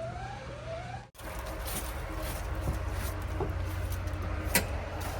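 Mahindra backhoe loader's engine running steadily with a low hum, which drops out for an instant about a second in; a single sharp click about four and a half seconds in.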